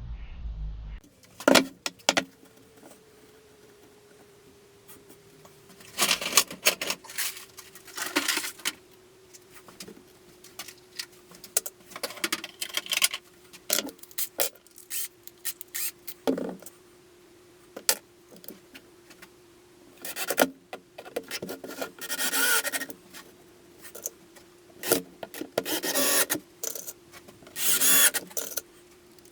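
Homemade belt grinder running with a steady hum, over irregular bursts of scraping and rubbing of up to about a second each, as if work is pressed to the belt.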